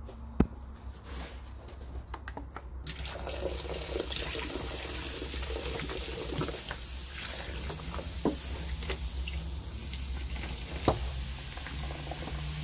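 White vinegar poured in a stream from a plastic jug into a stainless-steel sink, splashing onto baking soda that foams up in the basin. A few sharp knocks come first, and the steady pour starts about three seconds in.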